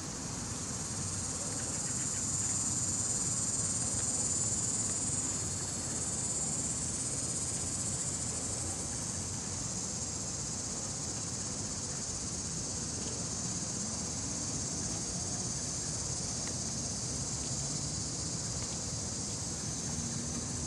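Steady high-pitched buzzing of summer insects, a little louder for a few seconds near the start.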